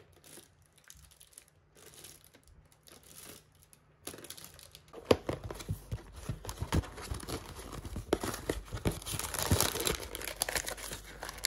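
Packaging being crinkled and torn open: faint, scattered rustles at first, then from about four seconds in a dense run of crackling.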